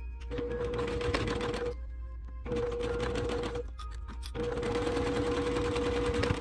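Brother PQ1500SL straight-stitch sewing machine stitching in three short runs with brief pauses between them, its motor holding a steady tone while running.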